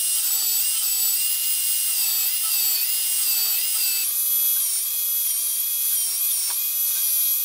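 Portable belt sander, turned upside down and used as a bench sander, running with a walnut butter-knife blank held against the belt to sand a bevel. A steady high-pitched motor whine that wavers slightly in pitch.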